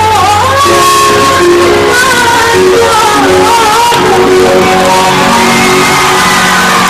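A woman singing a song over instrumental backing music, her voice gliding and bending in pitch above held notes.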